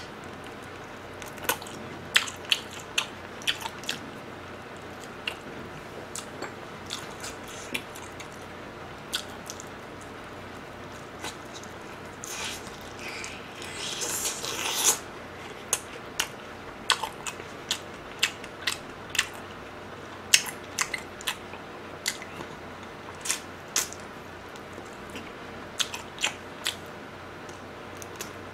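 Close-up eating of sauce-coated fried chicken: crunchy bites and chewing, heard as scattered sharp clicks and smacks, with a denser run of crunching about twelve to fifteen seconds in.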